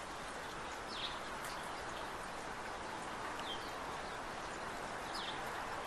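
Recorded house finch played back: a few short, sharp chirps spaced a second or two apart over a steady outdoor background hiss.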